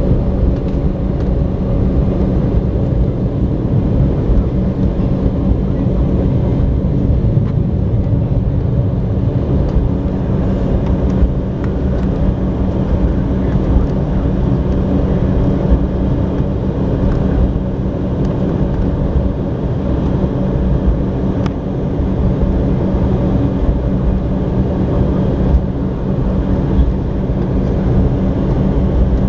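Steady hum and rumble of an Embraer 190's turbofan engines at low taxi power, heard inside the passenger cabin as the jet rolls along the taxiway, with a few faint clicks.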